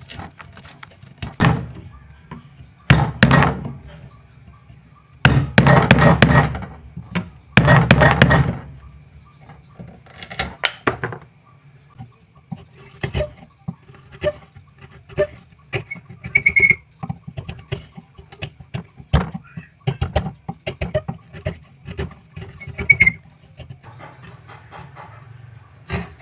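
Hand chisel paring a slot in a wooden joint held in a vise: a few long, loud scraping strokes, then a run of small clicks and taps as thin shavings are lifted, with two brief squeaks from the wood.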